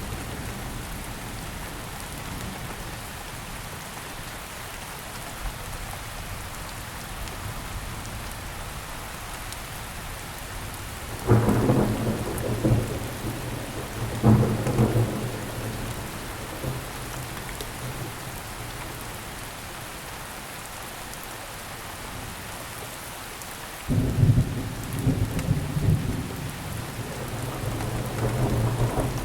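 Steady rain falling, with thunder: a sudden low rumble a little before the middle, a second one about three seconds later, and a longer rolling rumble starting near the end.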